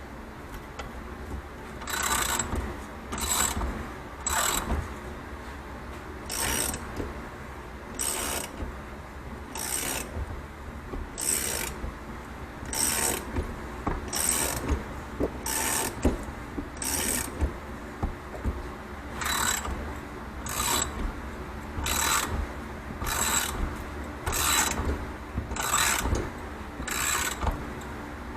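Hand tool cranking the threaded rods of a spring compressor to compress a shock's coil spring, making about eighteen short ratcheting bursts, roughly one every second or so.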